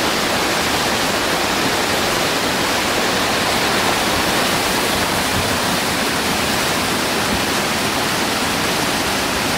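Whitewater rushing steadily through a steep creek's rapids and drops.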